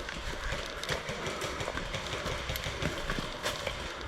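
Footsteps and gear rustling close to the microphone, an uneven shuffle of steps with a few faint sharp clicks.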